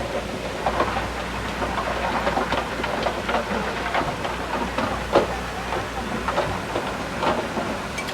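Komatsu D31P crawler bulldozer running, its low diesel engine hum steady under irregular metallic clanking and knocking from the tracks and blade, several sharp clanks a second.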